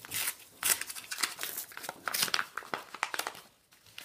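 Sheet of paper being handled, crinkling and rustling in quick irregular crackles, dying away about three and a half seconds in.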